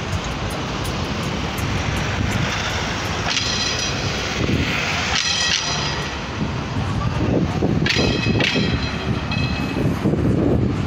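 Street traffic at a busy town intersection: car and bus engines running and passing in a steady drone, with a few short high-pitched tones cutting through now and then.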